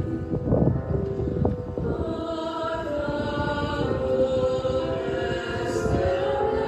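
Slow music with voices singing in chorus, the notes held long.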